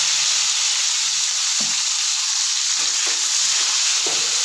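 Chopped shallots sizzling in hot oil with mustard seeds and cumin in a kadai: a steady hiss, with a wooden spatula stirring them near the end and knocking lightly on the pan a few times.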